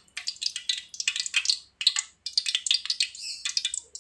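Cooking oil crackling and spattering as it heats in a pan, a dense run of irregular sharp pops, hot enough for the garlic to go in.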